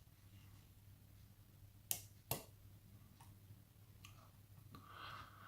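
Two sharp little clicks about half a second apart, from a lock pick working the pins of a pin-tumbler lock under tension, against near silence.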